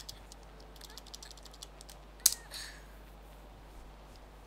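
Faint computer keyboard clicks, a quick run of keystrokes over the first two seconds, then one sharper click a little over two seconds in.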